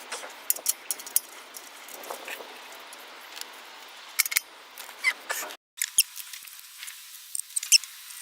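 Irregular small metallic clicks and clinks with the odd brief squeak: hand tools and fasteners being worked on the exhaust at the catalytic converter joint.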